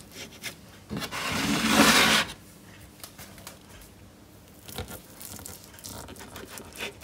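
A knife cutting through a soft slab of barfi and scraping along a wooden chopping board. One loud scrape about a second in lasts about a second, followed by fainter taps and scrapes.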